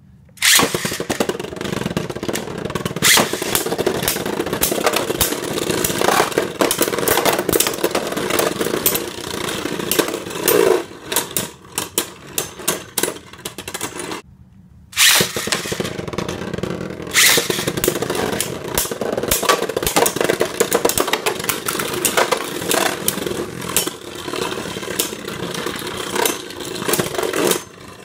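Beyblade Burst spinning tops, one of them Revive Phoenix, launched into a plastic stadium and clashing, with rapid clicks, knocks and scraping as they collide and grind on the stadium floor. The first battle ends in a burst about 14 seconds in. After a brief lull a second launch starts another clattering battle, which quiets near the end.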